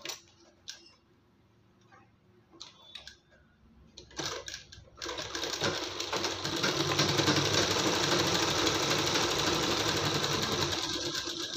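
A few soft clicks and rustles of fabric being set under the presser foot, then about five seconds in an Usha sewing machine starts and runs steadily at speed, stitching a dart into a blouse sleeve.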